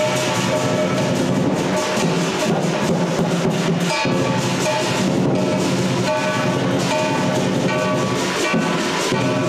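Music driven by drums and clacking percussion, with steady ringing tones sustained underneath.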